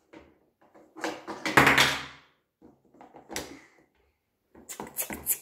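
Plastic toy kitchen oven door and parts being handled: knocks and a loud plastic clatter about a second in, a single click a little later, and a quick run of sharp plastic clicks near the end.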